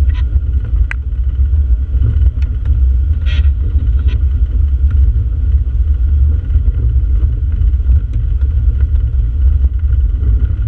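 Jeep driving on a snowy dirt road, heard from inside the cab: a steady low rumble of engine and tyres, with a few light knocks and rattles in the first few seconds.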